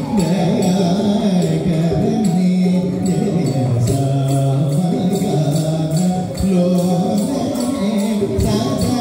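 Live Carnatic dance music: a singer's voice gliding through a slow melody over mridangam drumming, with a steady beat of small metallic strikes.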